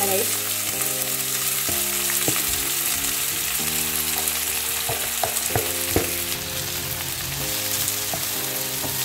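Sliced onions sizzling as they fry in hot oil in a nonstick wok and are stirred with a spatula. A few sharp knocks come about five to six seconds in.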